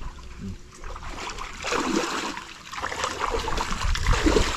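Pond water sloshing and splashing as a fishing net is hauled up through it by people wading. The splashing swells about two seconds in and again, louder, near the end.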